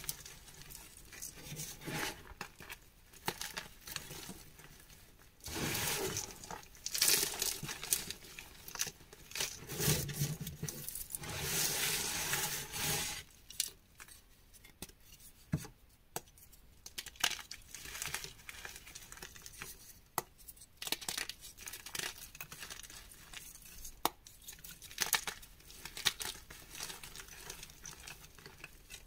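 Blocks of gym chalk being squeezed and crumbled by hand into a heap of chalk powder: dry crunching and crackling with sharp little snaps as pieces break. The crunching is densest and loudest for several seconds in the first half, then thins to scattered snaps.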